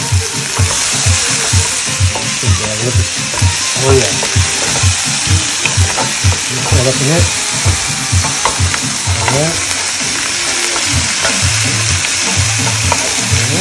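Seasoned cow foot pieces with chopped onion and green pepper sizzling steadily in a hot pot.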